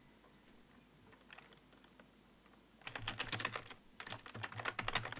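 Typing on a computer keyboard: a few faint key clicks, then about three seconds in a quick, steady run of keystrokes.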